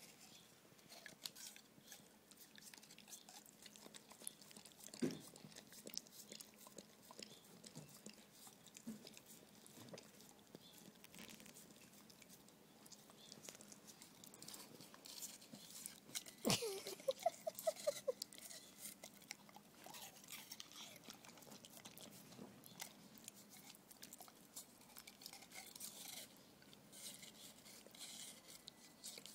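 Dogs licking, biting and chewing a frozen watermelon popsicle: faint wet mouth sounds with many small clicks, and a louder burst of bites about two-thirds of the way through.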